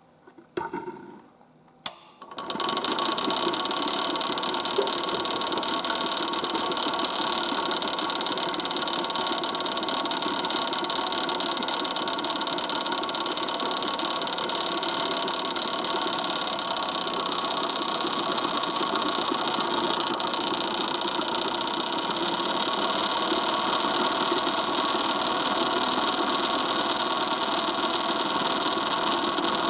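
Two sharp clicks, then a vacuum pump starts about two seconds in and runs steadily with a mechanical hum, drawing the air out of the chamber.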